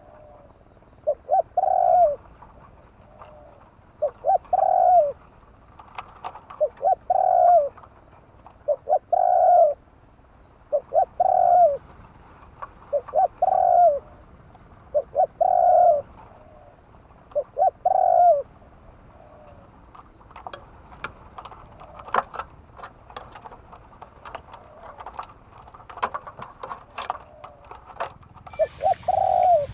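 Spotted dove cooing, one low phrase of a few short notes ending on a longer coo, repeated about every two seconds. After about twenty seconds the cooing stops and a run of sharp clicks and taps follows.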